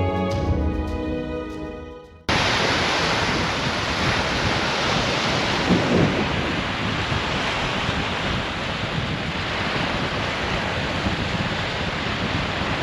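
Instrumental music fading out over the first two seconds, then a sudden cut to strong wind rushing over the microphone, a loud, steady rushing noise that runs on.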